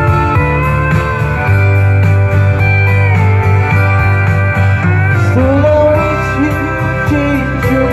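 Instrumental break of a country song: guitars with a steel guitar melody, some notes sliding in pitch, over a bass line, without vocals.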